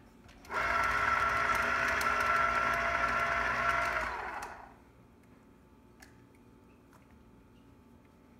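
Electric lever-operated citrus press: its motor starts about half a second in and runs steadily for about three and a half seconds, spinning the reamer under a pressed citrus half, then winds down. A few faint clicks follow.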